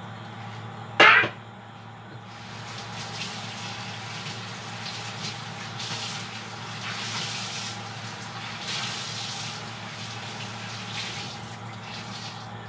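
A loud clank about a second in, then a kitchen tap running into the sink, splashing unevenly as something is rinsed under the stream.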